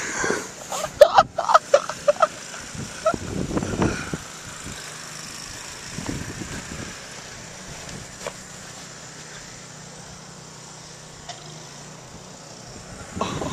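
Footsteps crunching through deep snow over a steady low engine-like hum, with a quick run of short, sharp squeaks about a second in.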